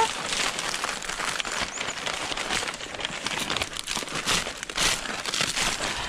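Steady rustling and crackling of leaves and forest undergrowth as plants are pushed aside by hand and dry leaf litter is stepped through.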